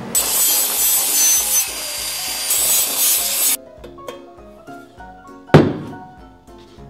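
Wire brush scrubbed by hand along the welded seams of a sheet-steel hopper, a harsh scratching that stops about three and a half seconds in. Then background music, with one sharp thunk near the end.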